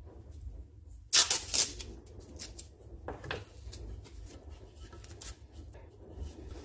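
Masking tape torn off the roll: two short ripping sounds about two seconds apart, then faint rustling as the strip is wrapped around a plastic tube.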